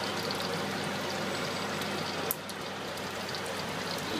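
Garlic prawns sizzling and bubbling in sauce in a stainless steel wok over a gas flame, a steady hiss with scattered small crackles over a steady low hum. A sharp click a little over two seconds in, after which the sizzle is a little quieter.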